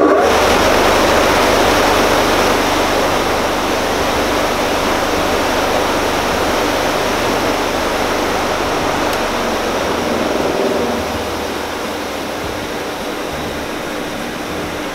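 Large old bench grinder, converted into a polishing machine with cloth buffing wheels, switched on and running at full speed. It makes a loud, steady whir of motor and air from the spinning wheels, with a faint hum, and gets somewhat quieter after about eleven seconds.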